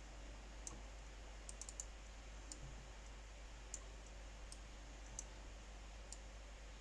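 Faint computer mouse clicks, about ten at uneven intervals, over a low steady hum.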